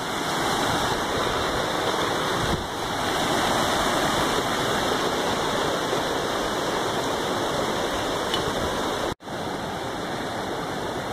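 Mountain river rushing over rocks in white-water rapids, a steady rush of water. It cuts out for an instant about nine seconds in and comes back a little quieter.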